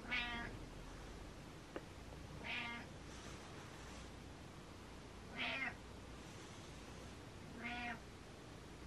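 Domestic cat meowing four times, short mews about two and a half seconds apart. A faint click falls shortly after the first meow.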